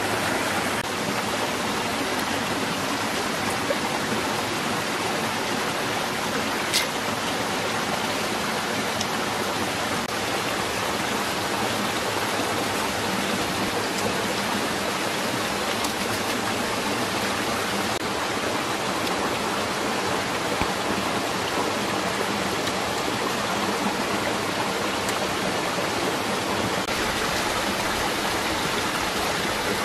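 Running water, a steady even rush, with one brief sharp click about seven seconds in.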